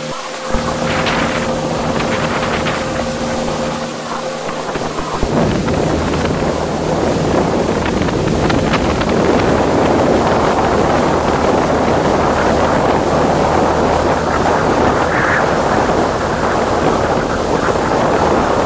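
Water rushing and splashing against the hull and bow of an outrigger boat moving fast, with wind buffeting the microphone. A steady engine hum lies underneath in the first few seconds, before the rushing water grows louder and takes over.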